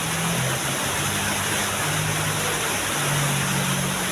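Steady rushing water of a small waterfall, with a low hum underneath that holds a note and steps up and down in pitch.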